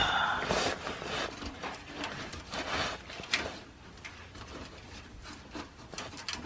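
Irregular rubbing, rustling and light knocks of hands winding a wet fiberglass repair wrap around a car's exhaust pipe.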